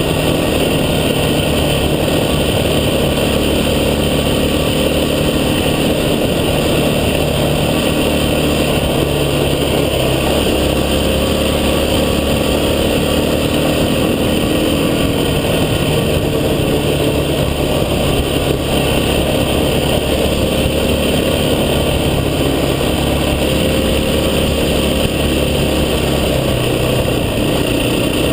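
An off-road vehicle's engine running steadily as it drives, a loud constant rumble whose pitch drifts gently up and down.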